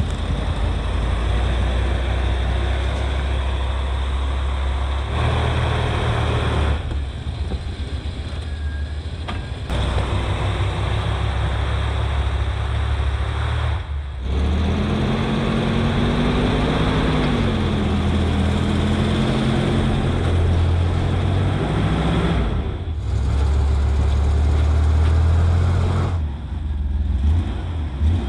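Chevrolet Suburban's V8 engine running and revving under load as the truck pushes through deep snow, the pitch rising and falling, in several short clips cut together.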